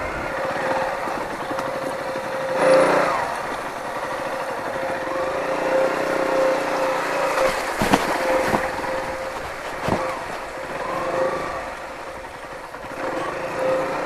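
KTM Duke 125 single-cylinder engine running at low speed, its revs rising and falling as the motorcycle picks its way along a muddy, rutted road. A few short knocks come through about 3, 8 and 10 seconds in, the first the loudest, as the bike goes over bumps.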